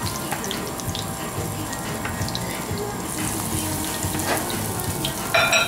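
Ring-shaped dough fritters frying in hot oil, a steady sizzle with light clicks from a wooden stick turning them. The hiss grows brighter about three seconds in, and there is a short louder sound near the end.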